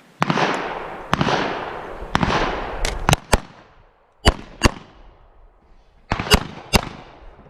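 Pistol fire during a timed stage: about ten sharp shots in irregular strings of one to three. The first few are followed by long echoing tails.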